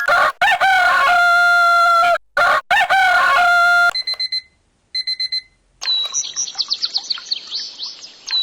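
A Homvilla 8813 alarm clock's speaker playing its alarm sounds: a recorded rooster crow, twice, then a few short electronic beeps, then a fast run of high, bird-like chirps.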